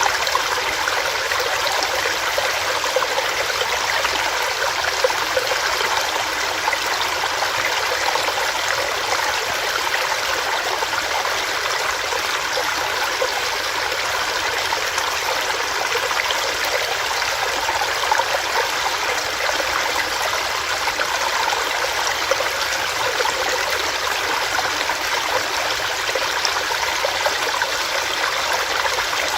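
Small rocky stream running over rocks: a steady, even rush and splash of water with no breaks.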